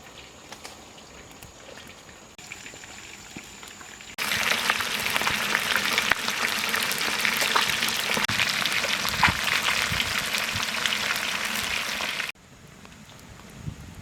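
Fish sizzling and crackling as it fries in hot oil. The sizzling starts abruptly about four seconds in and cuts off near the end; before it there is only a quiet background.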